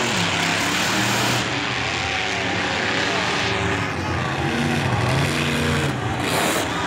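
Monster truck engines running on the track, their pitch rising and falling, with the engine noise at its fullest in the first second and a half.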